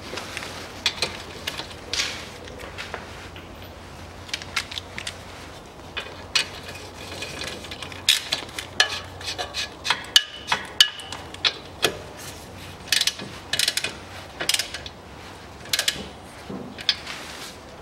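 Socket ratchet wrench clicking in short runs of strokes as the ball joint bolt on the front steering knuckle is tightened.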